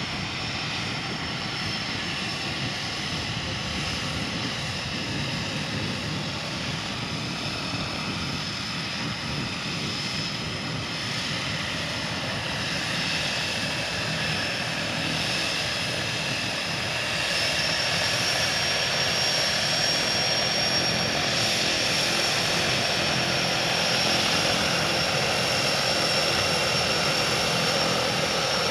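Single-engine de Havilland Otter floatplane's engine and propeller running steadily with a high whine as it taxis on its floats just after landing, growing louder a little past the middle as it comes closer.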